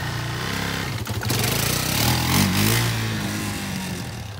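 Sport ATV's engine revving as the quad pulls away in gear and accelerates, its pitch climbing and then stepping down as the rider shifts up. The sound fades near the end as the quad moves away.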